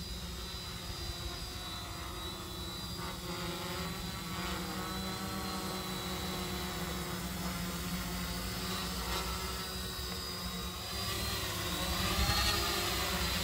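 DIY ESP32 quadcopter's electric motors and propellers whining as it runs, the pitch drifting up and down as the flight controller varies motor speed. It grows louder about eleven seconds in, with a rising whine near the end.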